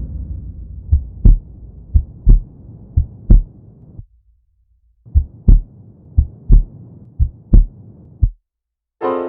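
Heartbeat sound effect: paired low lub-dub thumps about once a second, three beats, a pause of about a second, then four more. A fading hiss trails off at the start, and a piano chord comes in right at the end.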